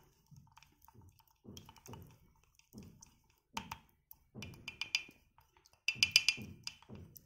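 A spoon stirring honey, ginger and lemon juice in a mug, tapping and clinking against the mug's sides in short bursts, loudest about six seconds in.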